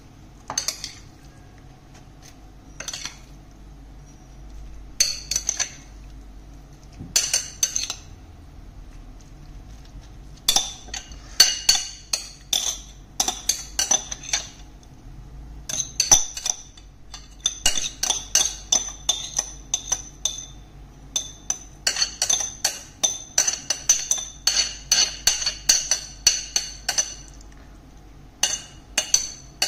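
Metal spoon clinking and scraping against a ceramic plate while scooping out meat filling. There are a few scattered taps at first, then quick runs of clinks from about a third of the way in.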